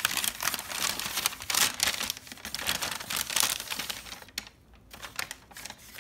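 Packing paper crinkling and rustling as hands unwrap it from a glass plate. It is dense and continuous at first, then thins to a few quieter crinkles for the last second or two.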